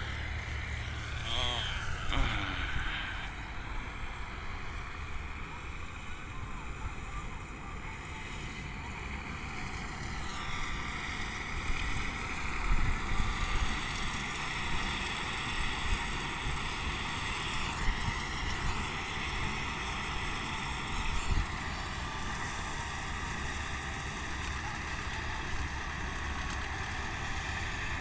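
Combine harvester running steadily as it cuts wheat, a continuous mechanical drone, with wind rumbling on the microphone.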